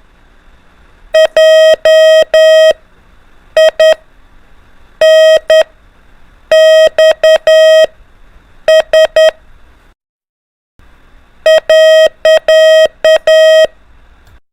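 Morse code (CW) practice tone: a single-pitched beep keyed in short dots and longer dashes, sending letters in separate groups with gaps between them and one brief pause about two-thirds of the way through.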